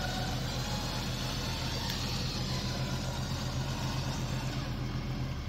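Off-road vehicle's engine idling steadily.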